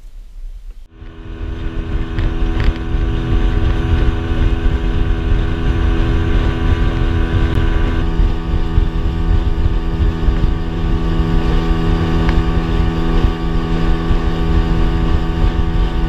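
Motorboat engine running steadily, a loud, even hum with a low rumble that cuts in about a second in.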